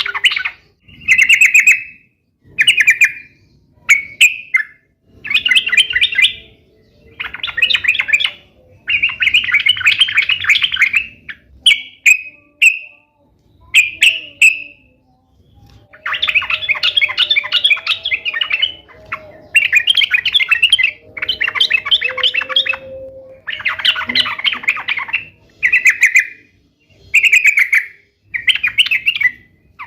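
Yellow-vented bulbul (trucukan) singing vigorously: loud, bubbly, chattering song phrases, each half a second to two seconds long, repeated one after another with short gaps.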